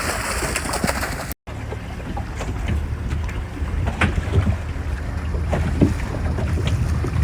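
Motorboat engine running steadily at sea, with wind and scattered light knocks and clicks on the boat; the sound cuts out briefly about a second and a half in.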